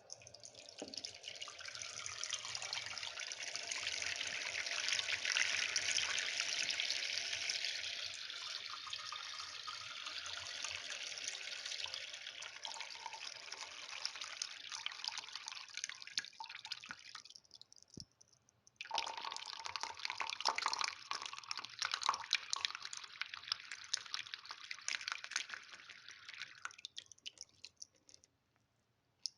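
Water running from a faucet in a steady stream; it stops briefly a little past halfway, starts again about a second later, and tapers off shortly before the end.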